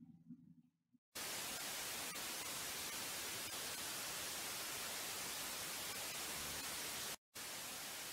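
Static hiss sound effect, a steady white-noise crackle, starting abruptly about a second in, cutting out for an instant near the end, then resuming.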